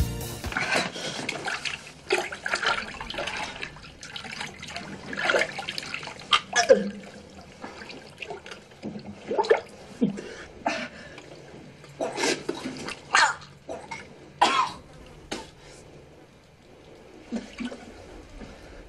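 A man coughing, grunting and gagging in short, irregular bursts while he reaches down into a toilet bowl, with water sloshing in the bowl.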